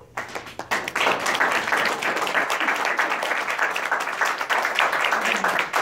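Audience applauding at the end of a talk: the clapping starts suddenly and fills out within the first second, then carries on steadily.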